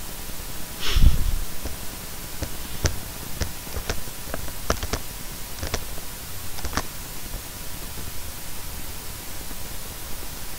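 Steady hiss of a recording microphone, with a string of sharp clicks between about two and seven seconds in from a computer mouse being clicked. A short rustle with a low thump comes about a second in.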